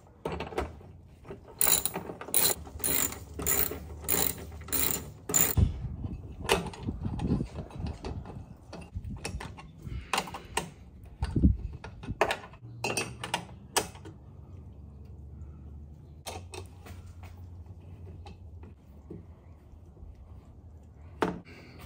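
Hand socket ratchet clicking as it turns a bolt on a driving-light mount bracket, about two clicks a second in a run early on, then a second run around the middle, with a few light handling knocks after.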